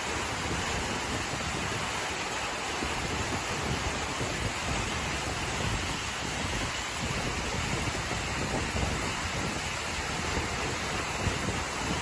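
Waterfall pouring into its plunge pool: a steady rushing of falling water.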